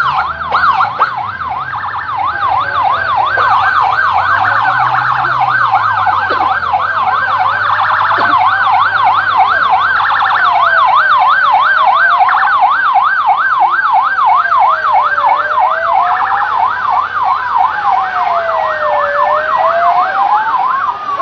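Police escort sirens sounding together: one in a fast yelp, another in a slower rising-and-falling wail.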